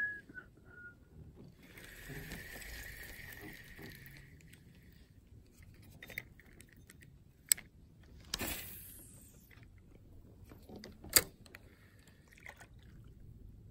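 Spinning reel being worked: a steady whir of the reel winding for about two seconds starting two seconds in, then a sharp click, a short rush of noise that fades, and another sharp click near the end.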